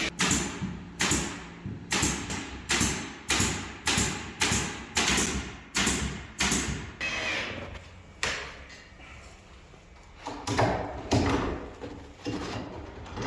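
Hammering: about a dozen sharp, evenly spaced strikes, a little under two a second, each ringing briefly, then a pause and a few more strikes near the end.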